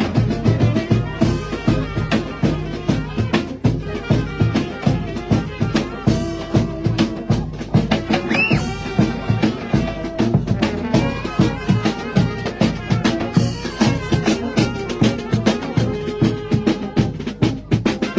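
Loud music with a fast, steady drum beat and sustained instrumental lines, with a brief rising whistle about halfway through.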